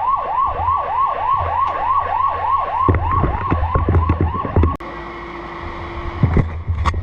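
Fire truck siren on a fast yelp, wailing up and down about three times a second over engine rumble; it cuts off abruptly about two-thirds of the way in, leaving a quieter steady hum and a few sharp knocks.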